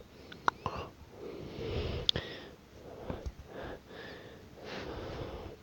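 A person breathing softly close to the microphone, several slow breaths in and out, with a few faint sharp taps in between.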